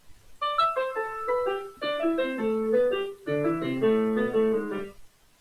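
A short piano tune, a quick run of notes and chords serving as an intro jingle. It starts about half a second in and stops shortly before the end.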